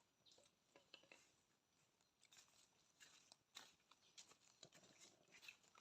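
Near silence: only faint, scattered small clicks and rustles.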